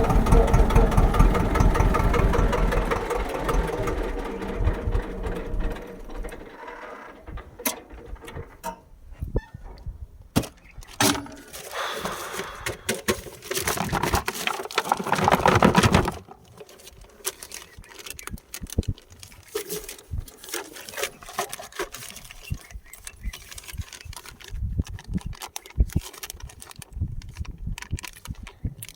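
Tractor engine running at idle, then stopping about six seconds in. After it, irregular clicks and rustling handling noises, with a louder stretch of rustling for a few seconds in the middle.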